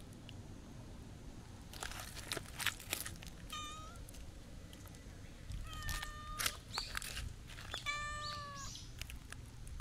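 Black cat meowing three times: a short meow, then two longer ones. Before the first, a cluster of brief crackling rustles.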